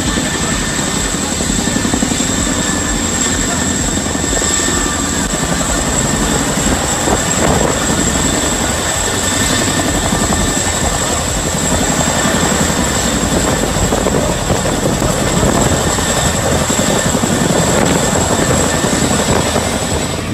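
Boeing CH-47 Chinook tandem-rotor helicopter flying low overhead, its rotors beating in a steady, rapid chop with a thin steady high whine above.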